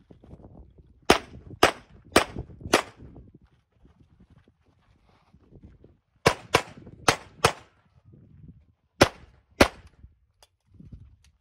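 Pistol shots fired in quick strings of aimed pairs: four shots about a second in, four more about six seconds in, then two near the nine-second mark.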